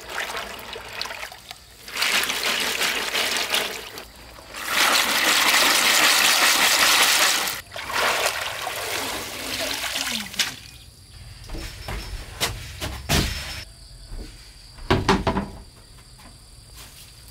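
Water splashing and pouring out of a woven bamboo basket of snails as it is rinsed and lifted in a stream, loudest for about three seconds near the middle. Later come a few dull thumps.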